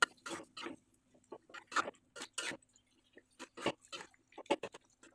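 Metal spatula stirring wet, saucy beef stew in a wok, giving irregular short scrapes and clacks against the pan.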